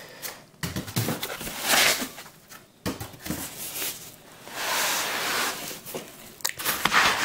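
Cardboard box and foam packing being handled: irregular rustling and scraping, with a few sharp knocks.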